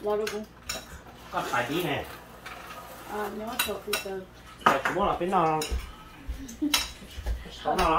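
Spoons and utensils clinking and scraping against bowls and plates as people eat at the table, with voices talking in between.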